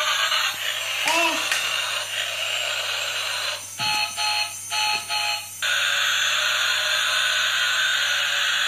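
Battery-powered transforming robot toy car playing electronic sound effects through its small speaker: a steady hissing noise, broken about four seconds in by four short electronic beeps.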